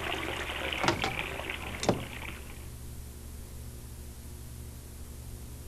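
A water-like rushing hiss with two sharp knocks about a second apart; the rush stops about two and a half seconds in, leaving a low steady hum and faint tape hiss.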